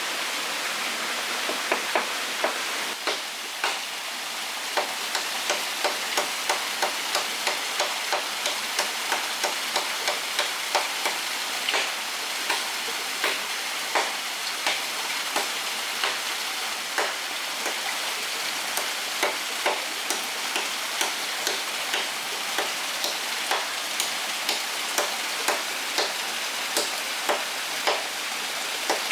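Steady rush of a forest stream, with sharp, irregular clicks and taps about once or twice a second over it.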